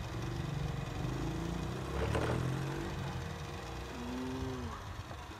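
A small engine running, its pitch wavering and gliding, with a louder swell about two seconds in.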